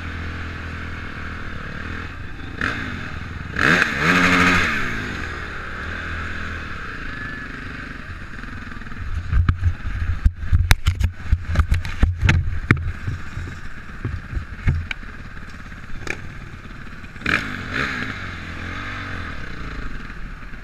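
Honda CRF450 four-stroke single-cylinder motocross engine running at low speed, blipped briefly about four seconds in and again near the end. A run of sharp knocks and rattles comes in the middle.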